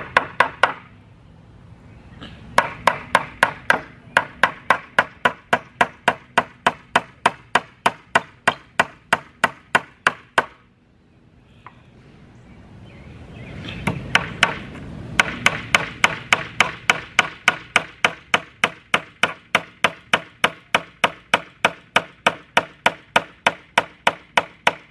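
Hammer driving 2-inch finishing nails into a wooden board, quick even strikes about three a second. Two runs of strikes, with a pause of about four seconds in the middle while the next nail is set.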